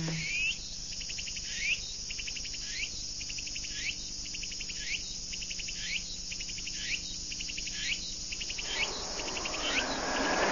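Insect chirping sound effect repeating about once a second, each call a short upward chirp followed by a rapid ticking trill. Near the end a rising whoosh of wind-like noise swells in.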